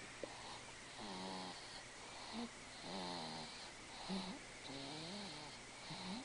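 Six-month-old baby snoring while asleep: three breaths, each a longer pitched snore followed by a short one, about every two seconds.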